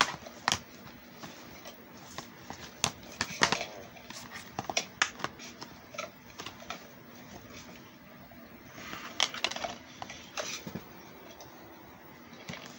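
Plastic DVD keep case being handled and opened, with a scatter of sharp clicks and snaps as the case is opened and the disc is unclipped from its centre hub.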